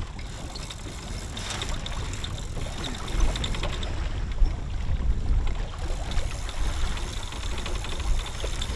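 Wind rumbling on the microphone over water rushing past the hull of a sailing boat under way. The rumble grows stronger about three seconds in, and faint scattered clicks sit over it.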